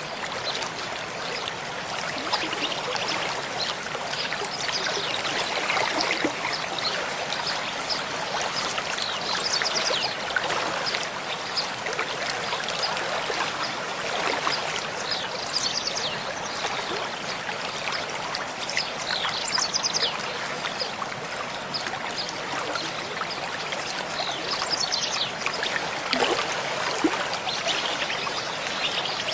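A stream of running water trickling and babbling steadily, with many small splashes.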